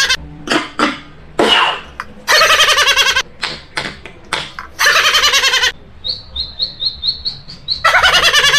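A beatboxer's mouth-made sound effects: loud squawking, bird-like calls with short clicks between them, then a run of about nine quick high chirps, then a loud squawk near the end in imitation of a seagull.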